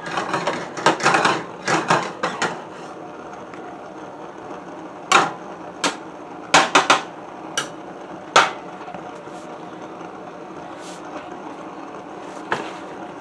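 A frying pan and spatula clattering on a gas hob: a quick run of knocks and scrapes in the first two seconds or so, then single sharp knocks about a second apart, and two fainter ones near the end.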